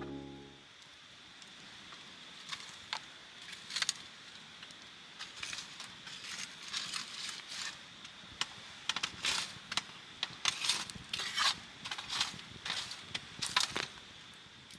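Irregular light clinks, rattles and rustles of camping gear being handled, sparse at first and then denser and louder through the second half, over a faint steady high whine.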